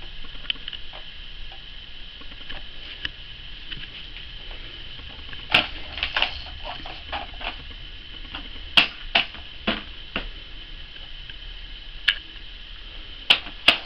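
Scattered sharp clicks and taps of a baby handling a plastic toy on a high-chair tray, single knocks and quick pairs a second or a few seconds apart.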